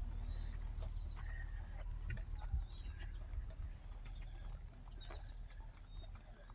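Steady high-pitched insect chorus, with scattered faint short chirps and a low rumble underneath.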